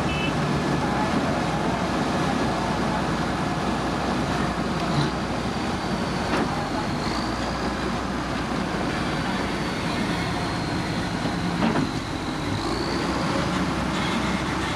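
Heavy diesel road-construction machinery running steadily under load, with a thin high whine and a few brief knocks.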